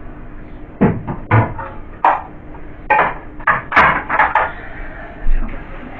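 Knocks and clatters of fridge fittings and contents being handled during cleaning: about eight separate sharp knocks, irregularly spaced.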